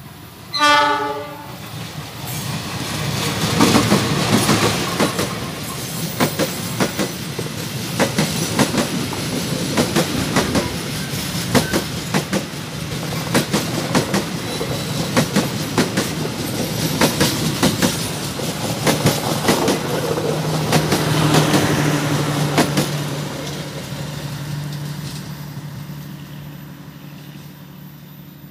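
Diesel-hauled passenger train sounding a short horn blast about a second in, then passing close by with a rapid clickety-clack of wheels over the rail joints. A steady low hum comes late in the pass, and the train fades as the last coaches run away.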